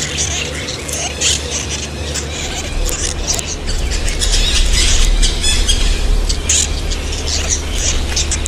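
Many young farm birds cheeping and squealing at once in a dense chorus of short, high-pitched calls, over a steady low hum.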